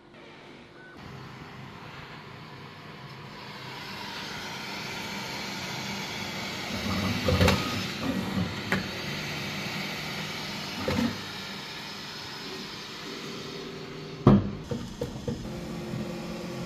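Bambu Lab X1-Carbon 3D printer at work: a steady whir of its fans and motors that grows louder over the first few seconds, with several knocks and clicks from the moving toolhead, the loudest a sharp knock about fourteen seconds in.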